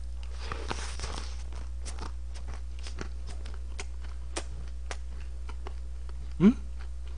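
Close-miked chewing of a mouthful of tangsuyuk (Korean sweet-and-sour fried pork): a run of small, wet mouth clicks, with a brief hum of voice about six and a half seconds in. A low electrical hum runs underneath.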